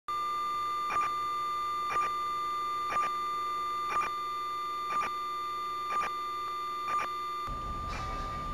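A steady high electronic tone, with a short beep about once a second, seven times in all. A low rumbling noise sets in near the end.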